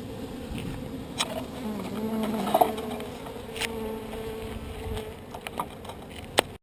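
Honeybees buzzing around an opened hive box, a steady hum of wavering tones from many bees. A few sharp clicks stand out, one near the end the loudest.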